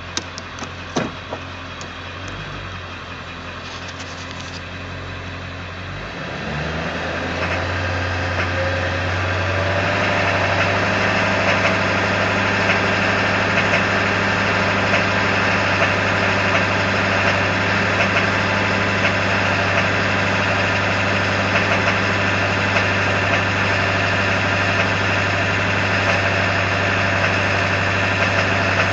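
Ford F-350's 7.3 L Power Stroke V8 turbo diesel running in gear, with a few sharp clicks about a second in. About six seconds in the engine speed climbs to high idle, and from about ten seconds in it runs steady and louder. The owner hears a knock in gear at low rpm under power, cause unknown.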